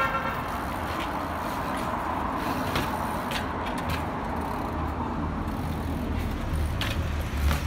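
Steady rumble of street traffic, with a few sharp knocks as a trials bike's tyres land hops on stone ledges.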